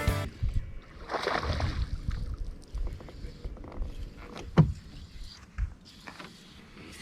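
Water sloshing and lapping against a small fishing boat's hull, with irregular low thumps and a sharp knock a little past halfway.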